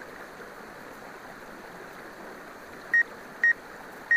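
Two short high beeps, about half a second apart near the end, over a steady hiss: the DJI GO 4 app's obstacle-proximity warning as the Phantom 4 Pro's sensors pick up vegetation close by.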